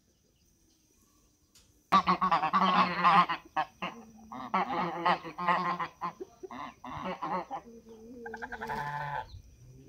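A flock of domestic geese honking: a loud burst of honking starts about two seconds in, followed by a run of shorter repeated honks that carries on until near the end.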